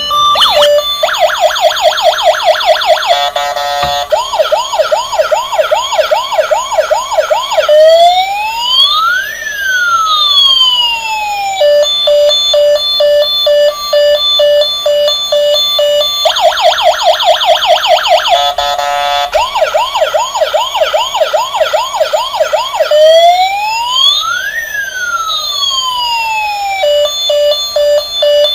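Toy emergency vehicle's electronic siren sound chip cycling through siren patterns: a fast warbling yelp, slower repeated wails, a long wail rising then falling, then steady beeping pulses. The same sequence starts again about halfway through.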